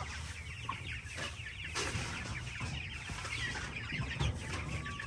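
A flock of chickens calling continuously, many short high chirps overlapping one another, with a few brief scrapes of a hand tool working through the coop's floor litter.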